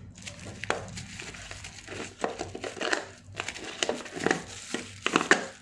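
Thin plastic wrapper crinkling as a hair trimmer is unwrapped by hand: irregular crackles and rustles, with several louder crinkles.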